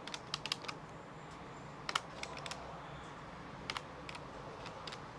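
Keys tapped in short irregular runs of sharp clicks, entering figures to add up a total.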